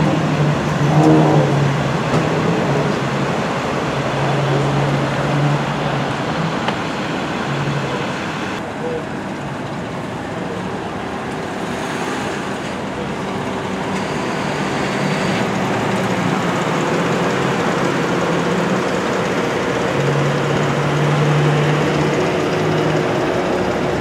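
Steady vehicle noise: idling engines and street traffic, with a low hum that comes and goes.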